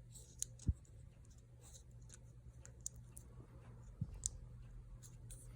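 Faint, sparse clicks and ticks of a small repair tool working at the battery connector inside an opened Apple Watch, as the battery is being disconnected, over a faint steady low hum.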